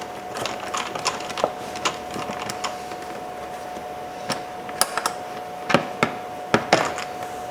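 Light, irregular clicks and taps of a T20 Torx driver working two screws out of a plastic interior door handle assembly, over a faint steady tone.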